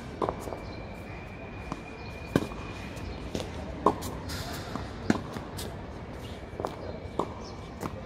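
Tennis rally on a hard court: rackets striking the ball and the ball bouncing, a sharp pock every second or so. The loudest are the near player's shots.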